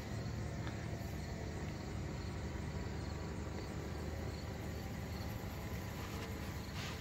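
Steady low drone of a distant paraplane (powered parachute) engine flying overhead.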